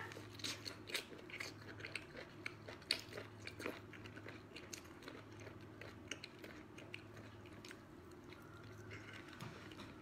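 Faint mouth sounds of a person biting and chewing a thick octopus tentacle: scattered small wet clicks and smacks, busiest in the first few seconds and thinning out, over a low steady hum.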